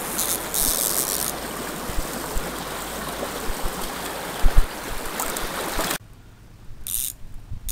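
Stream water running, a steady rushing noise, with a couple of dull knocks about four and a half seconds in. Near the end it cuts off suddenly to a much quieter background with a few brief rustles.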